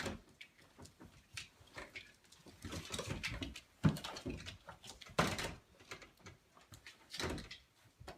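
A dog's sounds and scuffling noises, with a sharp knock about four seconds in.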